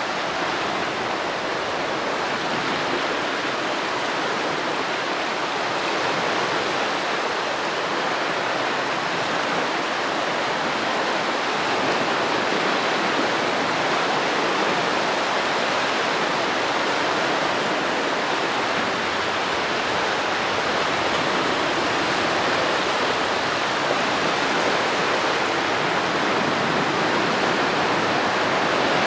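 Baltic Sea surf: small waves washing onto a sandy beach as a steady, even rush, with no single wave crash standing out.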